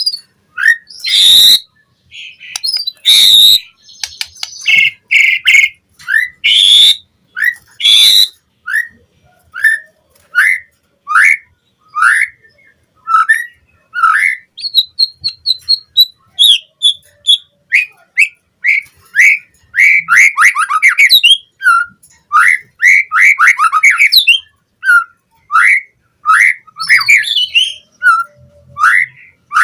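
White-rumped shama (murai batu) singing: loud harsh notes over the first several seconds, then a long series of short clear whistled notes about every half second, with a quick trill partway through and denser, varied phrases about two-thirds in.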